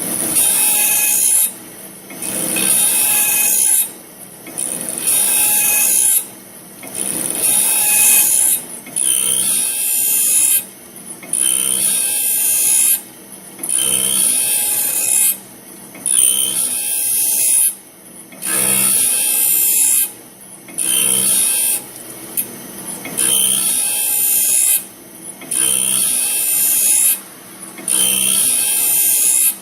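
Automatic bandsaw blade sharpener grinding the blade's teeth in repeated high-pitched strokes, each lasting one to two seconds and separated by a short dip, about one every two seconds, over a steady motor hum.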